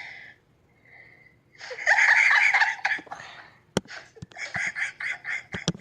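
A person laughing: a loud breathy burst about two seconds in, then a run of quick pulsed laughs near the end, with a couple of sharp clicks.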